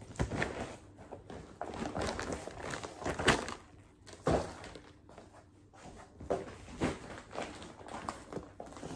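Footsteps and scattered knocks and thumps as someone moves about a small room handling things. A plastic carrier bag is picked up and rustles near the end.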